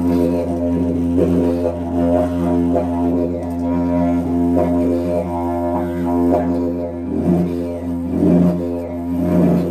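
Didgeridoo playing a continuous low drone, its overtones swelling in a rhythmic pulse about twice a second as the player shapes the tone with mouth and breath.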